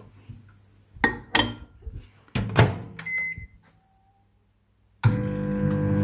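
Ambiano microwave oven being started: a few knocks as the dish goes in and the door is shut, the loudest about two and a half seconds in, then a short keypad beep. About five seconds in the oven starts running with a steady hum.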